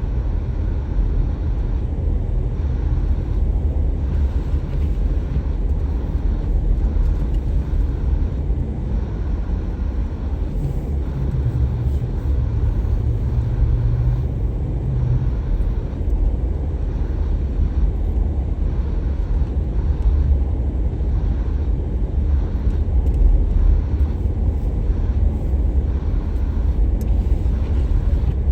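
Steady low rumble of a car being driven: road and engine noise, with a slightly stronger low hum for a few seconds near the middle.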